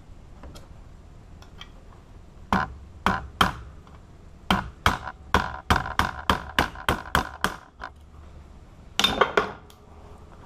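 Sharp metallic knocks with a short ring: three spaced knocks, then a quick run of about a dozen at roughly four a second, and a last short cluster near the end.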